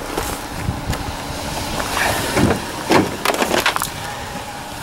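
Handling noise from a Bose sound dock being picked up and moved: rustling, with a few sharp knocks and scrapes clustered a couple of seconds in.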